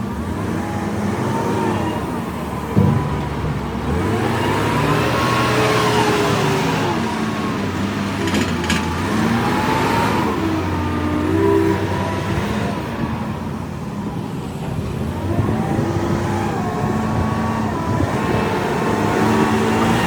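A motor sound, its pitch rising and falling again and again like an engine revving up and down, with a sharp knock about three seconds in.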